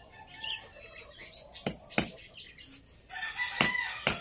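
A hammer knocking on bamboo slats and scrap wood, a few sharp blows in pairs, while a rooster crows near the end.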